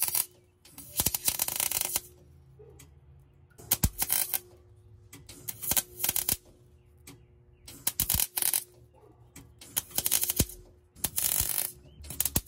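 Millermatic 251 MIG wire welder laying tack welds: a string of short crackling arc bursts, about seven, each a second or less, with pauses between.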